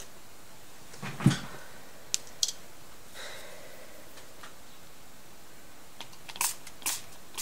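A knock about a second in and two sharp clicks just after, then near the end short hissing squirts from a hand-pumped ink spray bottle misting colour over the stencil.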